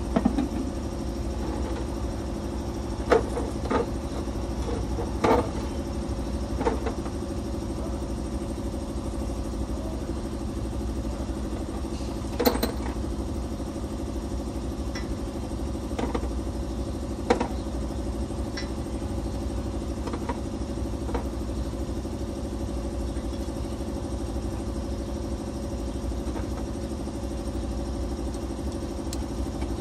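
A steady engine-like hum at idle, with about a dozen sharp metallic clinks and knocks scattered through the first twenty seconds, typical of hand tools on metal during brake shield plate removal.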